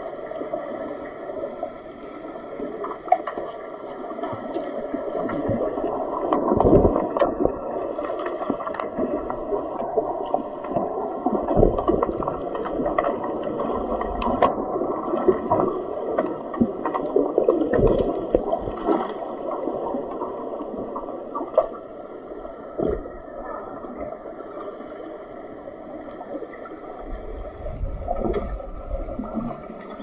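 Muffled underwater sound of a swimming pool picked up by a submerged camera: swimmers' splashing, kicking and bubbles rising and falling in a dull wash, with a few sharp clicks.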